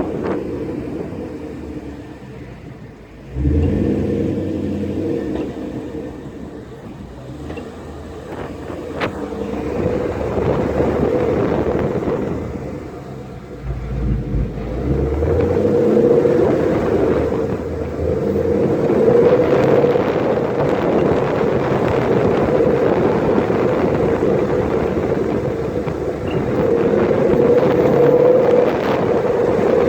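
Ford Mustang GT (S550) 5.0 V8 running under way with a steady drone. The engine pulls up suddenly about three seconds in and again around fourteen seconds, as when the clutch is let out and power goes back on.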